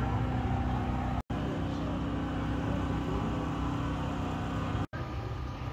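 Steady background hum and murmur of a large indoor hall, with no distinct event in it. It drops out for an instant twice, about a second in and near the end.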